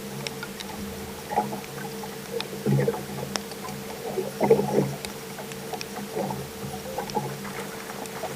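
A boat motor humming steadily, with irregular slaps and knocks of water against the hull.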